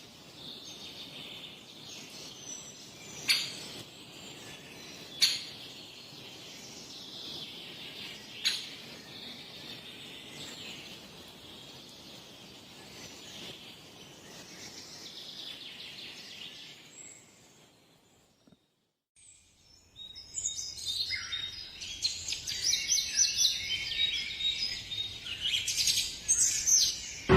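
Meerkats calling with faint high chirps and peeps, broken by three or four sharp clicks. After a gap of silence of about two and a half seconds, a different recording begins with many birds chirping busily.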